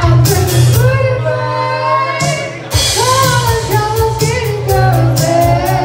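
Live band playing with a woman singing the lead: electric guitar, keyboard and drum kit, with cymbal strokes keeping a steady beat. The low end drops out for a moment about two seconds in, then the band comes back in.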